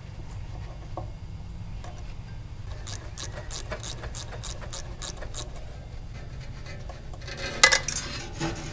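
Hand-tool work on a small engine: a run of short sharp clicks, about three a second, like a ratcheting screwdriver, then a sharp metallic clatter near the end, over a low steady rumble.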